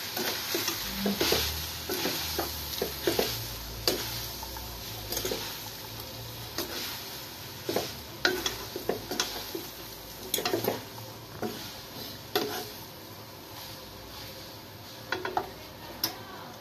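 Spaghetti being stirred and tossed in a hot wok with a wooden spatula and a metal fork, over a steady frying sizzle. Irregular scrapes and knocks of the utensils against the pan are loudest a little before halfway and again just after.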